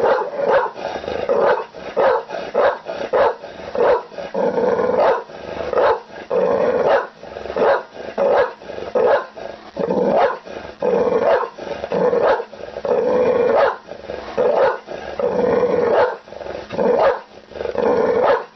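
Pit bull barking repeatedly and aggressively, about one to two deep barks a second, mixed with growling.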